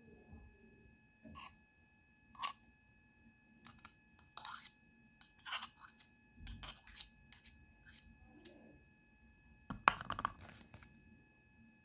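A kitchen knife scraping and tapping against the inside of a glass jar, a series of short scrapes and clinks a second or so apart. About ten seconds in comes the loudest clatter, as the knife is set down across a plastic mixing bowl.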